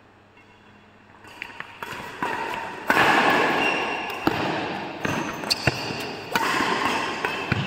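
Badminton doubles rally: sharp, irregular racket strikes on the shuttlecock with shoe squeaks on the court, starting about a second in and echoing in a large hall.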